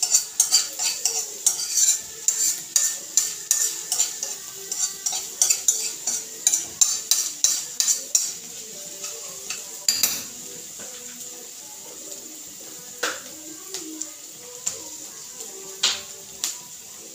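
A utensil stirring and knocking against a nonstick frying pan as sliced vegetables are stir-fried, about three knocks a second for the first half. After that the food sizzles steadily, with a few single clicks.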